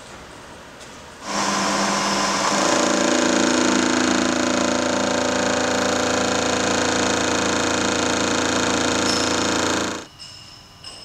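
Turret milling machine's cutter, head tilted to an angle, milling a bevel along the edge of a metal block. The cut begins about a second in, runs steadily with a regular pulse about twice a second, and stops near the end.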